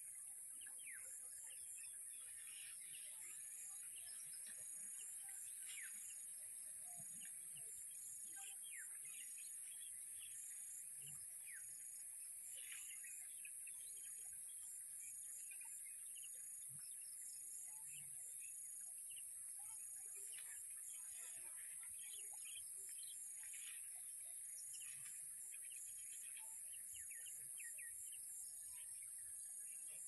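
A steady high-pitched insect drone with a rapid pulsing insect call beneath it, and scattered short chirps of small birds throughout. The elephant itself is not heard.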